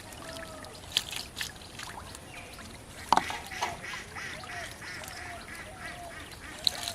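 Ducks quacking in short, repeated calls, with a few sharp knocks or splashes; the loudest comes about three seconds in.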